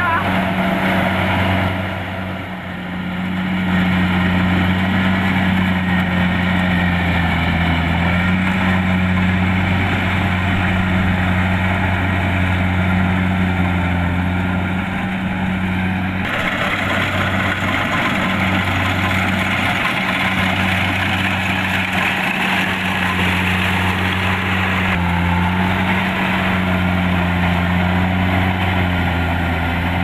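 Kubota DC-70 Plus rice combine harvester at work: its diesel engine runs at a steady pitch under the dense mechanical noise of the cutter and threshing drum.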